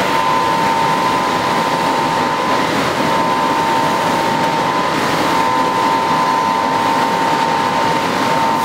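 CO2 laser cutting machine running while its cutting head moves across the bed: a steady rushing noise with a thin, high whine that shifts slightly in pitch every few seconds.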